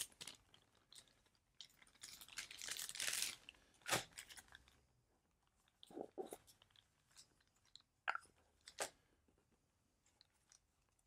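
Small puck-shaped container being handled and opened: a scraping rustle about two seconds in, then a few short, sharp clicks and taps.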